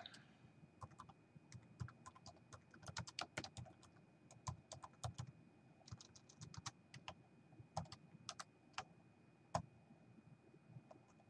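Faint typing on a computer keyboard: irregular key clicks, some in quick runs, with short pauses between.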